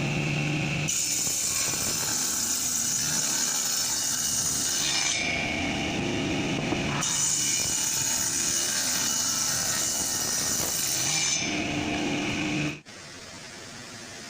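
Power tools running on wood, sawing or sanding, in several short clips that switch abruptly from one to the next. The tool noise drops to a quieter steady run near the end.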